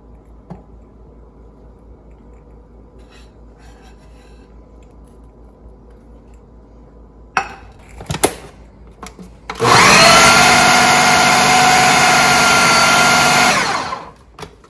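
Food processor lid clicking into place, then the motor running for about four seconds as it grinds raw chicken mince with toasted gram flour and spices. It spins up quickly to a steady whine, then winds down.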